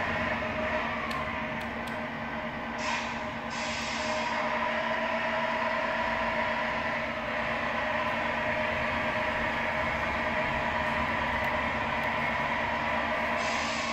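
Simulated truck engine sound played through the speaker of the RC truck's MFC-01 sound module, running steadily as the model drives. Short bursts of hiss come about three seconds in and again near the end.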